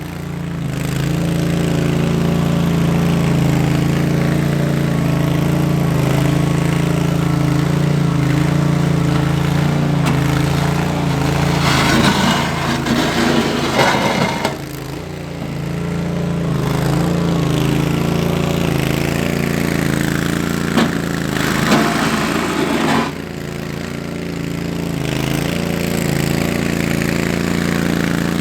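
Tractor engine running steadily while clearing snow. Louder rushing noises come and go about twelve seconds in and again about twenty-two seconds in.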